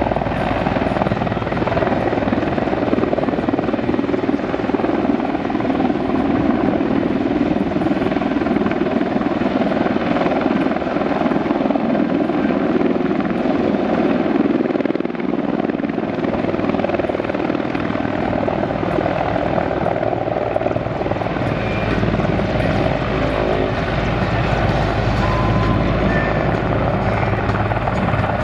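Mil Mi-24 helicopter's twin turboshaft engines and main rotor running loud and steady, dipping briefly about halfway through.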